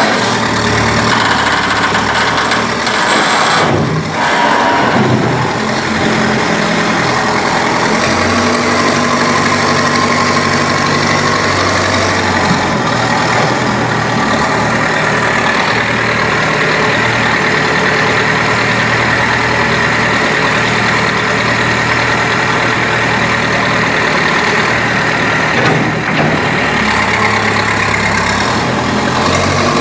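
Backhoe loader's diesel engine running while the machine works, its note changing pitch several times as it revs and settles.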